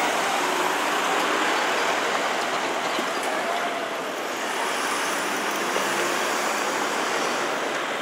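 Steady urban road traffic noise, a constant rush of passing vehicles with no distinct strikes or breaks.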